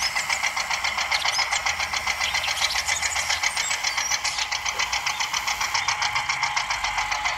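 A mini tractor's small motor running with a rapid, even, ticking chatter as it drives along.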